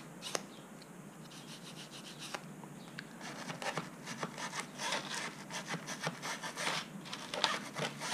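Toothbrush bristles scrubbing inside the memory slot of an HP G6 laptop, cleaning it with alcohol: a run of short rubbing strokes that grow quicker and louder about halfway through.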